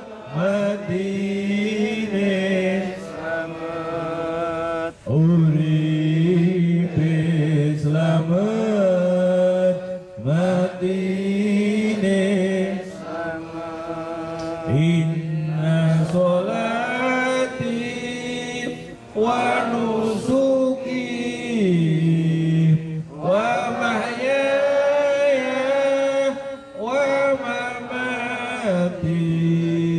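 A man's solo voice chanting an Islamic devotional recitation into a microphone. He holds long, wavering, ornamented notes in phrases a few seconds long, with short breaths between them.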